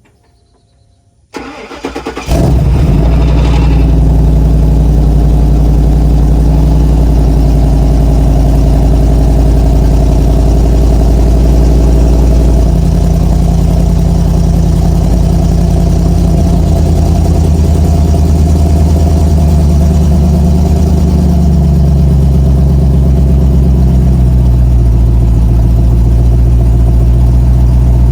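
Ford F-150's 5.4-litre three-valve V8 cold-starting through a Borla Pro XS muffler on a full 3-inch exhaust with no catalytic converters. A second of cranking, then it catches about two seconds in and runs at a steady, loud fast idle. The idle pitch drops a notch in the second half as the engine settles.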